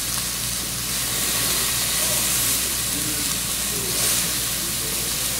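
Salmon nuggets sizzling steadily in a frying pan with only a little bacon grease and cooking spray, as they crisp on each side.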